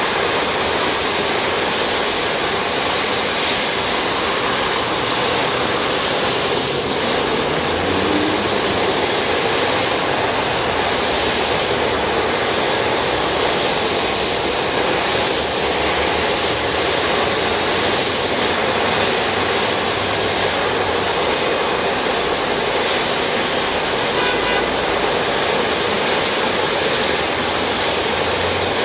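Airbus A340-600's four Rolls-Royce Trent 500 turbofans at taxi idle: a steady jet hiss with a faint high whine.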